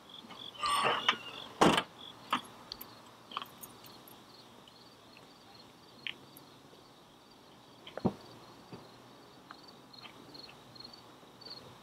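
Ford Taurus trunk lid swung down and slammed shut about a second and a half in, followed by a few light clicks and a second, quieter thump around eight seconds in.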